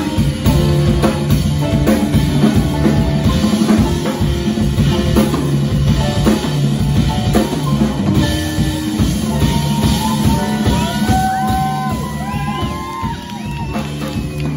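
Live jazz drum solo on a full kit, with dense snare, bass drum and cymbal strokes over low sustained notes. In the last few seconds, high voices come in with sliding calls over the drumming.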